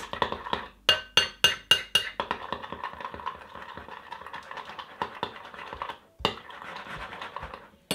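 Metal spoon clinking quickly against a glass bowl, with a short ring, then a steady scraping swish as the spoon stirs shaving foam into slime in the bowl.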